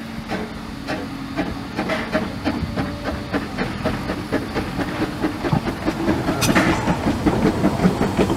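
Vale of Rheidol Railway GWR 2-6-2 tank steam locomotive No. 8 chuffing as it runs along the track. Its exhaust beats grow louder and closer together as it draws near, with the wheels clicking over the rails and a brief hiss about six and a half seconds in.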